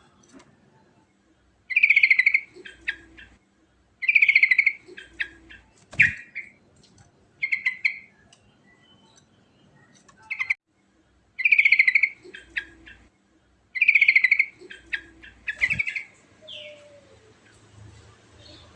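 Yellow-vented bulbul (trucukan) singing its rolling song: phrases repeated every two to three seconds, each opening with a rapid trill and followed by a few short notes. The singing stops about three seconds before the end.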